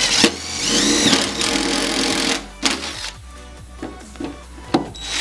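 Cordless drill with a step drill bit boring a hole through the truck's fender, its whine rising and falling through a burst of about two and a half seconds. A quieter stretch with a few ticks follows, and a second burst begins at the very end.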